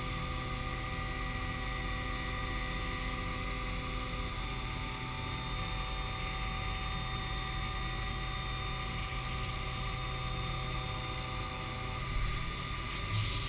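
Haas Super Mini Mill 2 CNC vertical mill cutting aluminium, running a chamfer contour pass with the spindle at 8000 rpm. It makes a steady whine of several fixed tones over a hiss of cutting and coolant spray, swelling slightly near the end.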